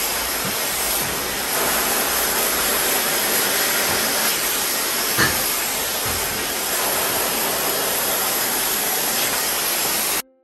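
Hand-held hair dryer blowing at a steady loud rush, drying wet curly hair stretched over a round brush during a straightening blow-dry. It cuts off abruptly near the end, with one short knock about halfway through.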